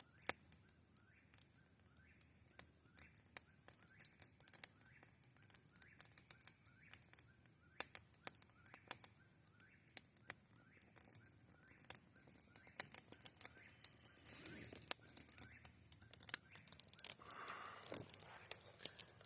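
Campfire crackling, with sharp irregular pops. Birds call in the background: a fast run of high pulsed notes that stops about twelve seconds in, and repeated short chirps.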